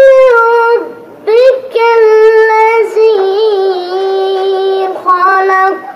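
A ten-year-old boy chanting Quran recitation in the melodic tajweed style, with long held notes and ornamented turns. He breaks for breath about a second in, then sustains a long phrase that steps down to a lower note before a short closing phrase.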